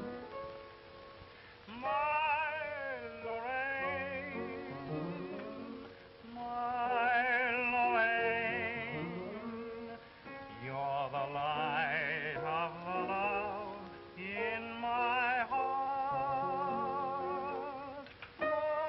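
A man singing a song with a wavering vibrato over instrumental accompaniment, in phrases separated by short breaths.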